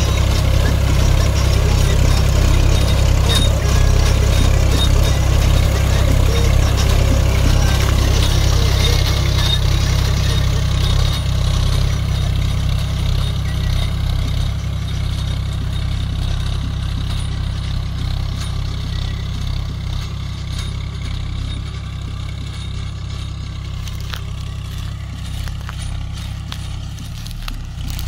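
Diesel engine of a 40 hp John Deere tractor running steadily under load as it pulls a chisel plough through the soil, fading gradually as the tractor moves away.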